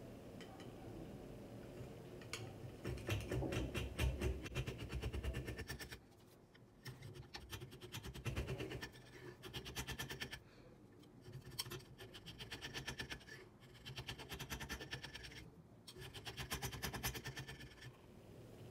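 Hand saw cutting across a wooden handle blank clamped in a vise, in several runs of quick back-and-forth strokes with short pauses between them.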